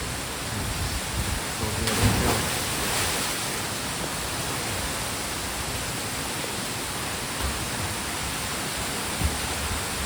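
Waterfall rushing steadily into a rock pool, with a splash about two seconds in as a person jumps into the water.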